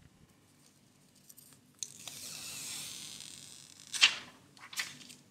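Plastic protective film being peeled off a new Huawei Y7 Prime 2018's screen. A steady high hiss of peeling starts about two seconds in, followed by a loud crackle about four seconds in and a shorter one just after.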